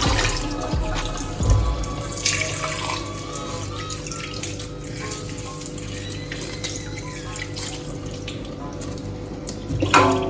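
Kitchen tap running steadily into a sink while food is rinsed under it, with a few knocks and clatters, the loudest near the end. Quiet background music underneath.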